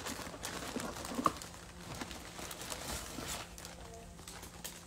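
Soft crinkling and rustling of wet sheets of paper being handled, with scattered faint ticks.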